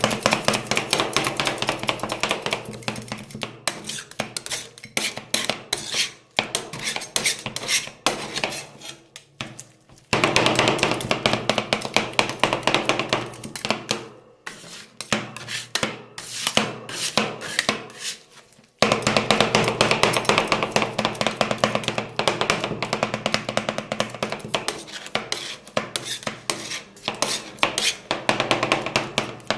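Metal spatulas chopping rapidly on a rolled ice cream cold plate, a fast clatter of knocks, breaking off abruptly twice.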